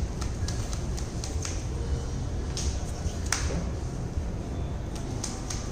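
Sleeved trading cards being handled and set down on playmats: a string of light, irregular clicks and taps, over a low steady background hum.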